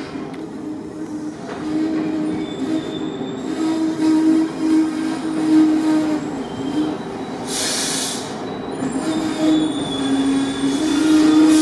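HŽPP class 7121 diesel railcar running slowly past, with a steady drone from its running gear and engine that grows louder as it comes close. Two short bursts of hiss about eight seconds in and near the end.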